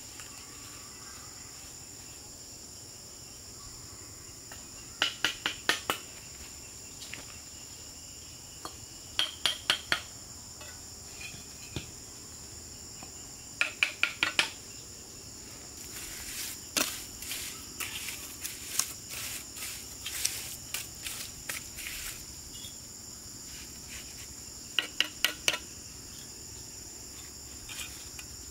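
Steel trowel tapping clay bricks down into wet cement mortar, in quick runs of four or five sharp taps every few seconds with a longer spell of irregular knocks in the middle. Insects buzz steadily and high-pitched throughout.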